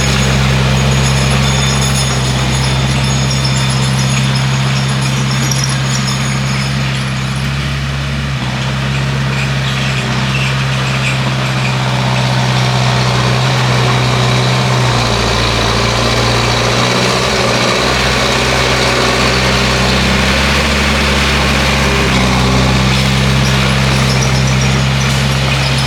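Bulldozer's diesel engine running steadily under work, with a deep, constant hum; its note changes for several seconds in the middle and then returns.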